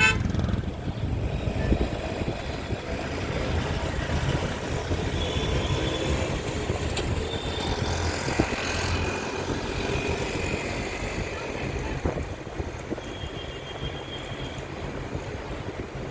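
Road traffic: a steady rumble of vehicles, with a few brief high-pitched tones now and then.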